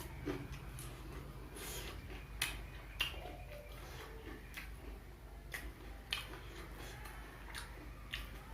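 A person eating deep-fried snacks (gorengan) close to the microphone: chewing, with sharp crunchy bites and mouth clicks at irregular intervals, roughly every half second to a second and a half.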